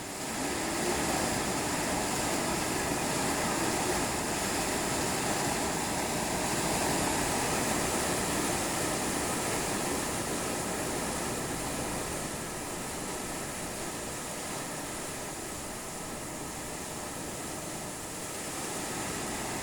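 Strong wind with heavy rain: a steady rushing noise that swells a little in the first half and eases slightly after.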